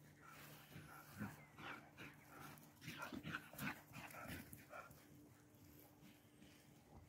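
A Galgo Español (Spanish greyhound) panting faintly in short, irregular breaths, catching its breath after running.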